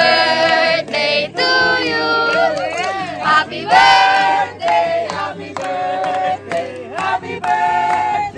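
A group of people singing a birthday song, with hand clapping, in held notes that bend in pitch.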